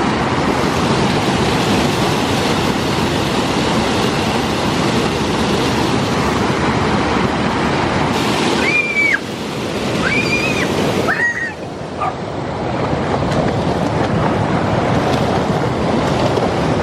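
Rushing water of a stream's small waterfall, a steady noise, with three short high-pitched calls near the middle.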